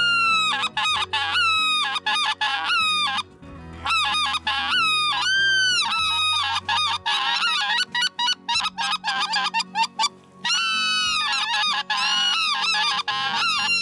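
Two hunters blowing wind-type goose calls as loud long-range hailing calls: quick runs of honks and clucks that break sharply in pitch, with short pauses about a third of the way in and again near the end.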